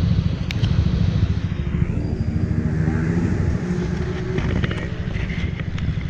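Motor scooter engine running on the road, with a heavy low rumble over it and faint engine tones above.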